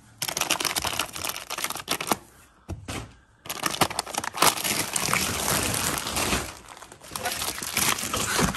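Plastic vacuum storage bags packed with clothes and bedding crinkling and rustling as hands rummage through them, with a short lull about two to three seconds in.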